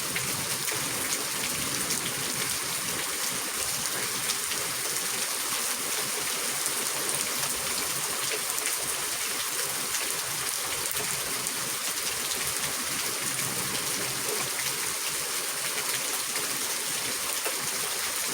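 Steady rain falling during a thunderstorm, an even hiss of rain with scattered drop ticks and no let-up.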